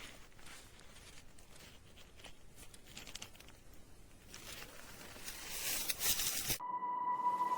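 Faint rustling with scattered small clicks, then a rising hiss; about two-thirds of the way through it cuts to steady sustained tones as music begins to swell.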